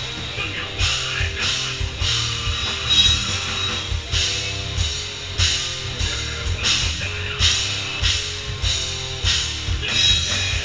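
Live rock band playing: electric guitar and bass over a drum kit with a steady beat.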